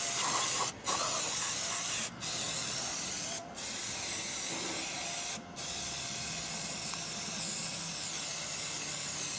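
Pressurised cleaning spray hissing in long bursts onto a removed turbocharger, broken by four brief pauses as the nozzle is let off and pressed again.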